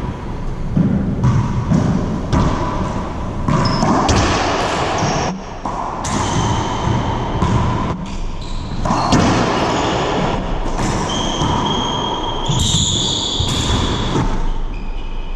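Racquetball ball being played: sharp echoing smacks as it is struck by the racquets and rebounds off the walls and floor of the enclosed court, many times over.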